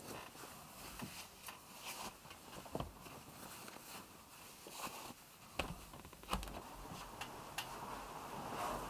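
Faint rustling of cloth with scattered small clicks and a few soft thuds, as socks are pulled on and the bedding is shifted.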